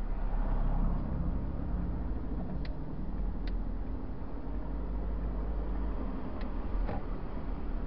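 Car driving, heard from inside the cabin: a steady low engine and road rumble, with four faint light ticks.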